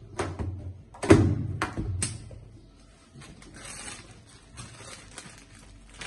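A latex balloon pops with one sharp bang about a second in, among a few smaller snaps of the rubber being handled; softer rustling follows.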